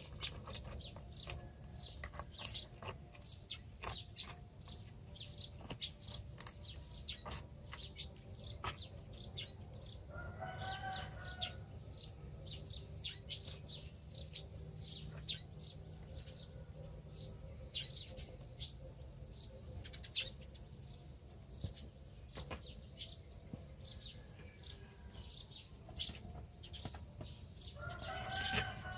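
Birds chirping rapidly and without a break, many short high chirps a second. Two brief lower calls with a clear pitch come about ten seconds in and near the end.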